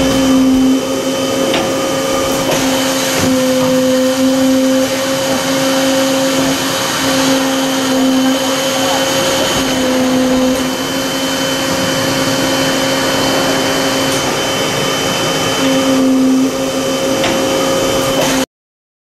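Filtration molding press in operation: a steady mechanical drone with a humming tone that swells and eases several times, over a faint high whine. It cuts off abruptly near the end.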